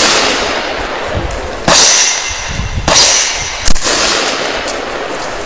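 Three rifle shots from a QBZ-97A semi-automatic bullpup chambered in 5.56×45 mm, fired roughly a second apart. Each shot is followed by a long echoing decay.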